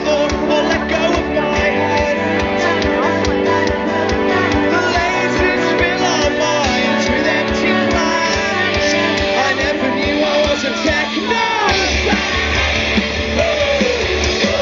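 Indie rock band playing live through a large outdoor PA, with a steady drum beat under a singing voice, heard from within the crowd through a phone's microphone.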